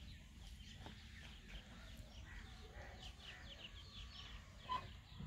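Faint birds chirping in the background: a rapid run of short, high chirps, with one brief louder note near the end.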